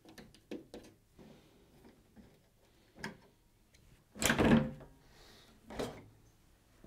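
Samsung ecobubble washing machine's top panel being slid back and lifted off: a loud sliding scrape about four seconds in and a shorter scrape near six seconds. A few light clicks come earlier, from the screwdriver at the back screws.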